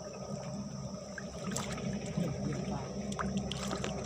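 Muddy ditch water sloshing and splashing around a man wading chest-deep and groping along the bank for fish by hand, over a low steady rumble.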